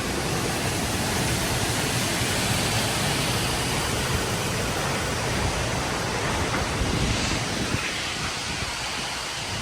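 Steady, loud rush of a large waterfall's falling water.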